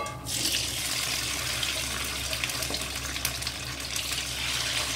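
Chicken wings sizzling in hot oil in a wok: a steady frying hiss that starts sharply as the first wing goes into the pan.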